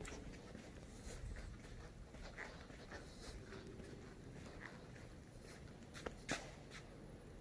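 Faint low rumble of factory background noise, with scattered light clicks and taps and a sharper knock about six seconds in.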